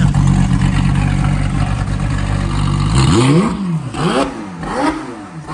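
McLaren 720S twin-turbo V8 running at a steady idle, then revved in quick throttle blips over the last couple of seconds, its pitch rising and falling about every two-thirds of a second.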